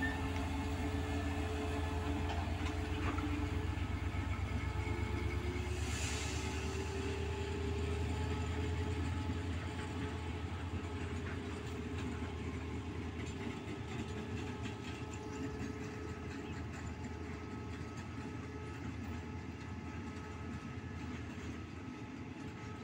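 CSR-built diesel-electric locomotive 5119 hauling a train of loaded crude-oil tank wagons. The engine drone is strong at first, its note rising a little, then fades as the locomotive draws away while the tank wagons keep rolling past over the rails. There is a brief hiss about six seconds in.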